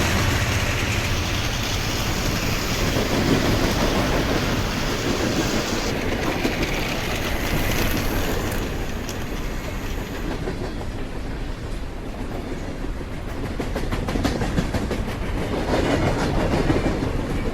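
Train running along the track: a steady rumble of wheels on rails, with a rapid clickety-clack of wheels over rail joints growing denser through the second half.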